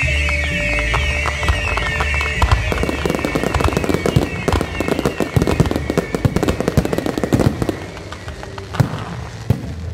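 Aerial fireworks going off: high warbling whistles at first, then a dense crackle of many small bursts for several seconds, thinning to a few single bangs near the end.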